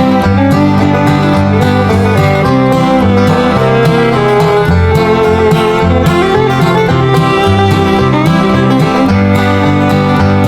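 Bluegrass-style music with guitar, fiddle and banjo playing at a steady, lively pace.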